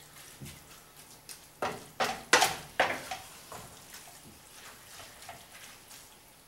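A wooden spoon stirring ground beef chili in a skillet: soft scrapes and knocks of the spoon against the pan, with a cluster of louder ones between about one and a half and three seconds in.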